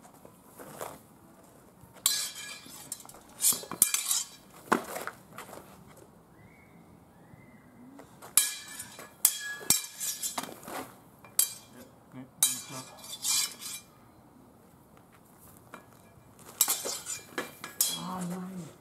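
Steel swords and bucklers clashing in sword-and-buckler sparring: about five flurries of quick, sharp metal-on-metal strikes, separated by pauses of a second or more.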